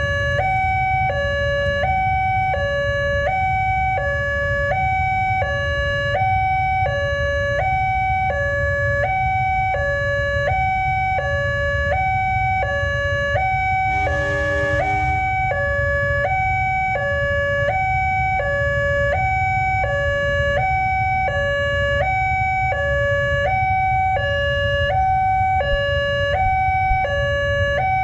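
Railway level-crossing warning alarm from a loudspeaker horn, sounding two electronic tones that alternate high and low about once a second, steady and unbroken, signalling that the barriers are down for a train. A steady low rumble runs underneath, and a brief lower honk cuts in about halfway through.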